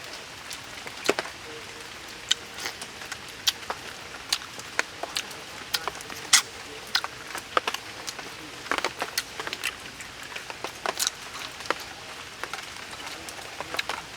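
A person eating: irregular wet mouth clicks and smacks from chewing, over a steady background hiss.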